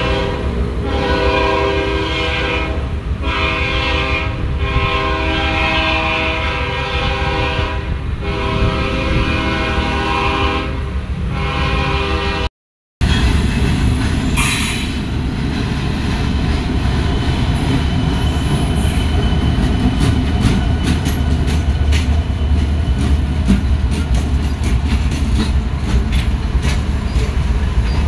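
Diesel freight locomotive sounding its multi-chime air horn in a series of long blasts with short breaks as it approaches a grade crossing. After a cut about thirteen seconds in, a consist of diesel-electric locomotives rumbles past close by, wheels clicking steadily over the rail joints.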